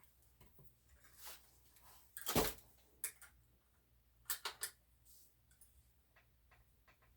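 Wrench working the rear axle nut of a bicycle: scattered light metal clicks and knocks, with one louder knock about two and a half seconds in and three quick clicks a little past four seconds.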